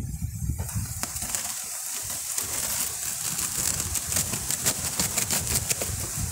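Cloth hive cover being peeled back off the wooden top bars of the frames: a crackling, rustling sound with many sharp clicks that starts about half a second in, over a low rumble.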